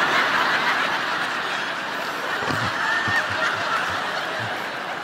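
Congregation laughing together, a large crowd's laughter that slowly dies away.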